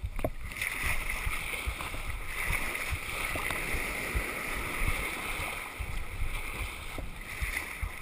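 Ocean surf breaking and foaming around a kayak: a steady rush of white water, with a few short splashes from the paddle.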